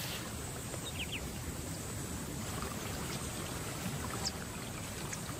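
Faint, steady outdoor ambience of trickling shallow water, with a few light ticks.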